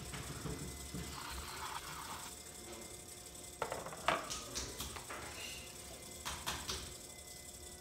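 Electric potter's wheel running with a steady hum while wet clay is thrown on it, with a few sharp clicks and knocks in the second half.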